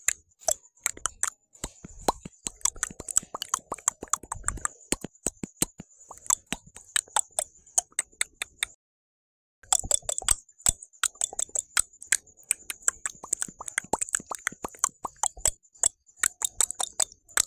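A person's mouth making rapid clicks and pops in quick, uneven runs over a steady high hiss. The sound drops out for about a second near the middle, then resumes.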